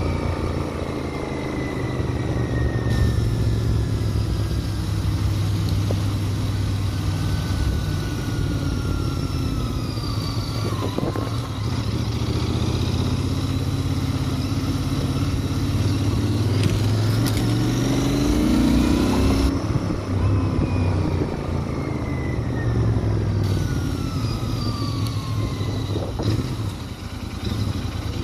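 Royal Enfield Interceptor 650's 648 cc parallel-twin engine and exhaust running as a steady low drone, with several slow falling tones over it.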